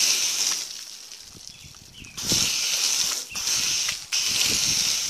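Foam gun spraying soapy water onto a car's body: a steady hiss of spray with splatter on the paint. It fades away about a second in, comes back at full strength just after two seconds, and breaks off briefly near four seconds.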